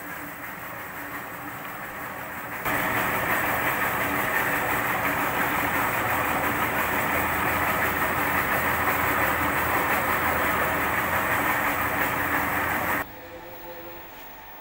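Horizontal milling machine cutting the serrated edge of a long metal roll-sealing-heater bar: a loud, steady machining noise starts suddenly about 3 s in and cuts off suddenly near the end, with the machine's lower running hum before and after.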